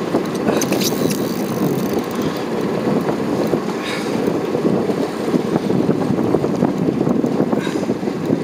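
Steady low rumble of a fishing boat's engine at sea, with wind buffeting the microphone.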